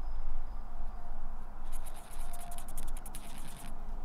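A marker pen scribbling quickly in a winch's bolt hole, marking the hole position on the boat's fibreglass cockpit moulding. It is a fast scratching, about ten strokes a second, from a little before halfway to near the end, over a low rumble.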